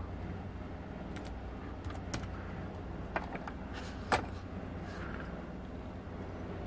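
A few faint, sharp computer mouse clicks, spaced about a second apart, over a steady low hum. The loudest click comes about four seconds in.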